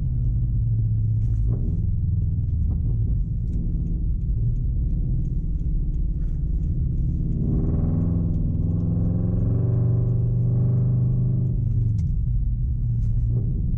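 Subaru BRZ's flat-four engine and tyres on a snowy road: a steady low rumble of driving, with the engine note climbing and holding for a few seconds from about halfway through as the car accelerates.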